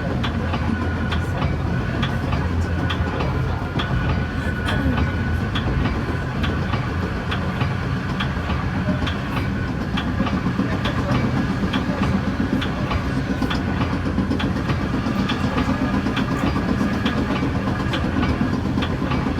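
Metra commuter train running at speed, heard from inside a passenger car: a steady low rumble with frequent clicks of the wheels over the rails, and a faint steady whine above.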